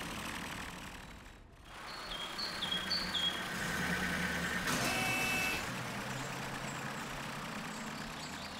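Cartoon truck driving sound effect: a steady engine rumble as a tow truck pulls a fire truck along the road. About two seconds in there are three short falling two-note chirps, and around five seconds a brief hissing burst.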